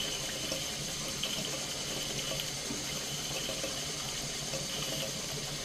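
Stuart S50 steam mill engine running smoothly and very quietly on steam from a gas-fired Stuart 501 boiler: a steady hiss with faint light ticks and no clatter or piston slap.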